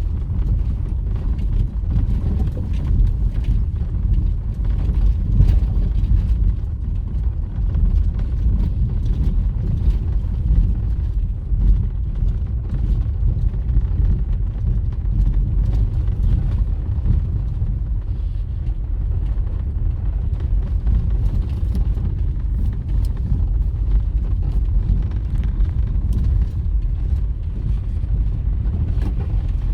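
Low, steady rumble of a moving vehicle, with many small knocks and rattles scattered through it.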